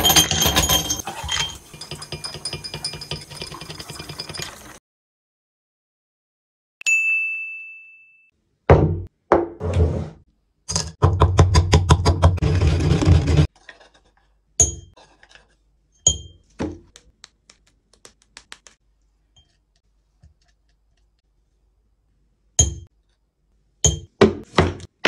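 Close-up kitchen sounds. First glass clinks and rings, then a single ringing ding. After that comes a fast run of strikes from a wooden pestle pounding in a wooden mortar, and near the end scattered taps and a few sharp knocks.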